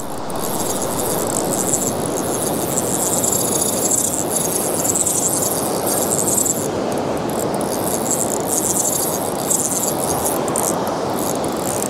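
Spinning reel cranked steadily to bring in a hooked fish, a continuous dry rattling of the turning reel, over the steady wash of surf.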